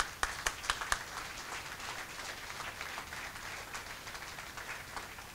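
Audience applauding: many hands clapping together, with a few louder claps in the first second.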